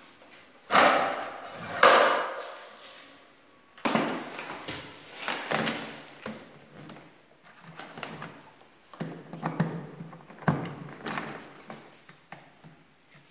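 Irregular knocks, clatter and rustling from a power cord and the plastic housings of a workshop vacuum and a mitre saw being handled; the loudest knocks come about one and two seconds in. No motor is running.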